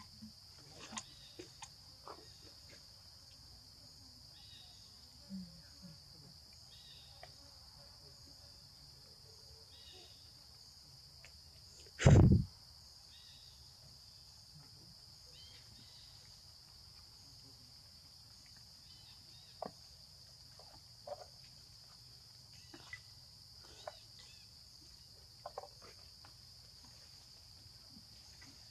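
Steady high-pitched drone of an insect chorus, with scattered small clicks and rustles. About twelve seconds in comes one loud, sudden thump lasting about half a second.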